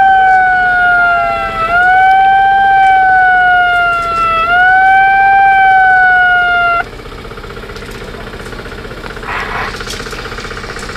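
A siren wailing: each cycle jumps up in pitch and then slides slowly down, about every two and a half seconds, three times over. It cuts off suddenly about seven seconds in, leaving quieter background noise.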